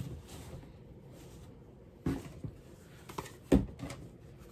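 Items being rummaged through and handled in a box: a few scattered knocks and light thuds, the loudest about three and a half seconds in.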